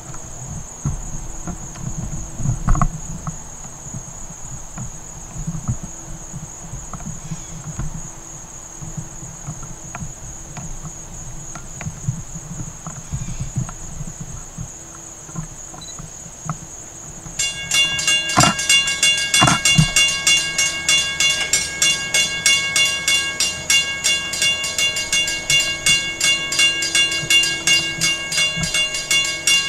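Insects keep up a steady high buzz over a low rumble; about seventeen seconds in, a grade-crossing warning bell starts ringing with a fast, even pulse as the LIRR train approaches, with two sharp clangs just after it starts.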